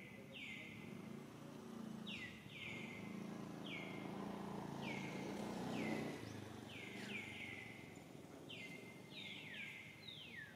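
A series of about a dozen short, high whistled animal calls, each falling in pitch, repeating every half second to a second, with a low background noise that swells in the middle.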